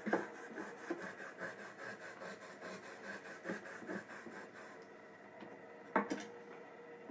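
Quick back-and-forth scraping of a small block rubbed across a flat sharpening stone, the strokes stopping about five seconds in. About a second later there is a single sharp knock, something set down on the wooden bench.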